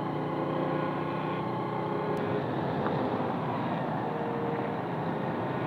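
Honda motorcycle's engine running at a steady cruise on a dirt road, its note mixed with a steady rushing noise.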